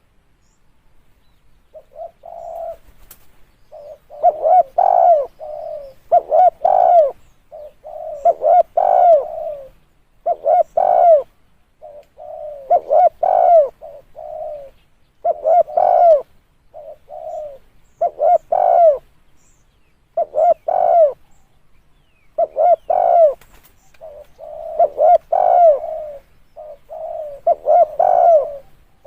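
Spotted dove cooing over and over in low, soft phrases of several notes, a phrase about every two seconds, after a short pause at the start.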